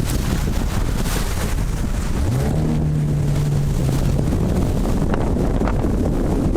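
Wind buffeting the microphone, a steady loud rushing. A low hum rises in pitch about two seconds in and holds for a couple of seconds before fading into the wind.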